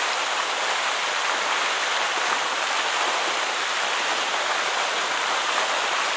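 Steady, even hiss of falling water, with no breaks.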